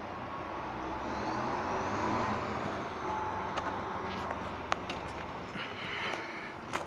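Motor vehicle noise that swells to a peak about two seconds in and then eases, with a few sharp clicks later on.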